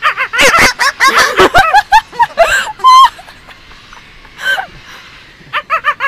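Parrot calling and chattering in a high, bending voice, with a rapid string of short repeated notes near the end.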